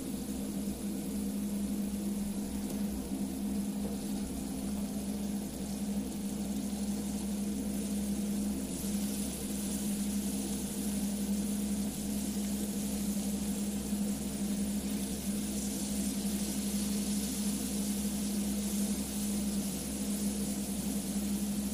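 A steady motor hum under a hiss that grows louder about nine seconds in.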